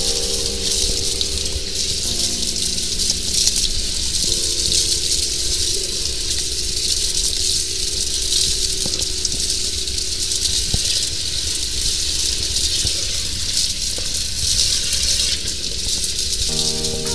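High-pressure sewer jetter spraying water through a hose inside a drain pipe: a steady loud hiss with a rattling, gushing undertone.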